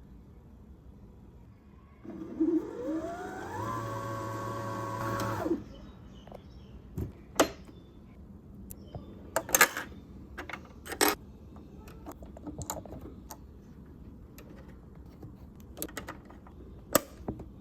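Janome J-885 sewing machine stitching for about three seconds: the motor whine rises in pitch as it speeds up, holds steady, then stops abruptly. It is followed by a series of separate sharp clicks and knocks.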